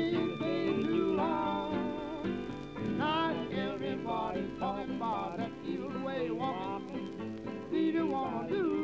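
Background music: a song with a singing voice over instruments.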